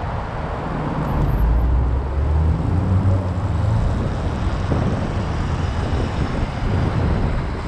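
Wind rumble on the microphone and city traffic noise while riding an electric motorbike through an intersection, with cars running close by; the low rumble swells about two to four seconds in.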